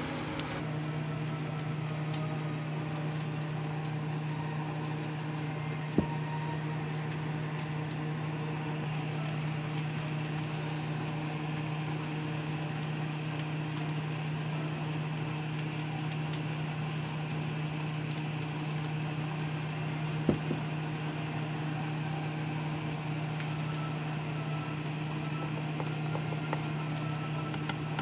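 A steady low machine hum, such as a small motor or fan running, with two sharp knocks, one about six seconds in and another about twenty seconds in.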